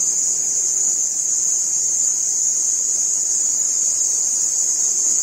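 A steady, high-pitched insect chorus: one shrill, unbroken drone that holds level throughout.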